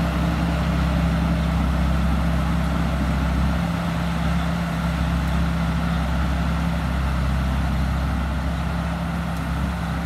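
Tamco Pro Z3000 rice combine harvester's Isuzu 6BG1 diesel engine running steadily as the machine drives across the field, a low even drone that eases slightly as it moves away.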